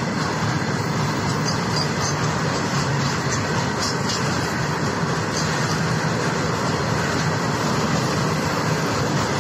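Open freight wagons of an Indian Railways goods train rolling past close by. Their wheels on the rails make a steady rolling noise, with a few faint scattered clicks.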